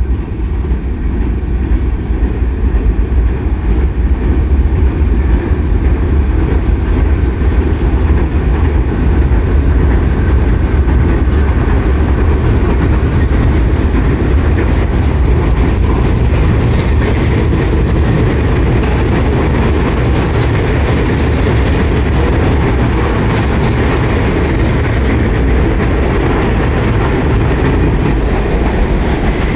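R68A New York City subway train running through an elevated station on the express track without stopping. Its wheels on the rails give a loud, steady rumble, with a thin high whine above it throughout.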